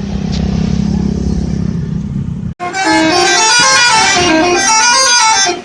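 A bus engine runs with a steady low rumble. After a sudden cut about two and a half seconds in, a telolet multi-tone bus horn plays a quick melody of stepped notes going up and down, the loudest sound here.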